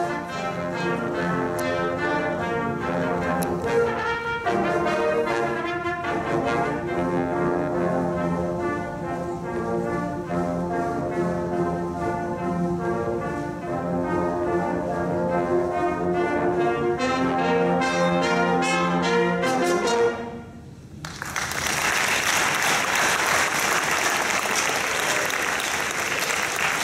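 A brass ensemble of trumpets, French horns and trombones plays a lively piece with drums that ends abruptly about 20 seconds in. After a brief pause, the audience applauds.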